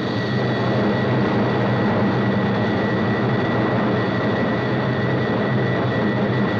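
Jet aircraft noise inside the cockpit: a loud, steady roar with a high, steady whine over it, as the aircraft buffets violently just past its critical Mach number.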